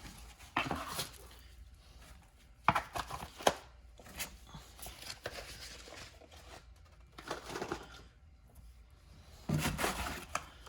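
Scattered clicks and knocks with short bursts of rustling from handling boxed machinist's tools and their cases.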